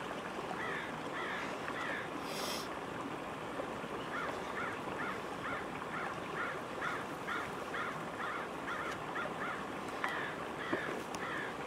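Birds calling over and over in short, quick calls, about three a second, over a steady background hiss; a short rustle about two seconds in.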